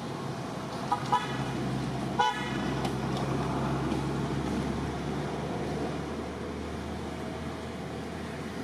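A motor vehicle passing with a steady engine hum that swells and then fades. Its horn gives a quick double toot about a second in and a longer toot at about two seconds.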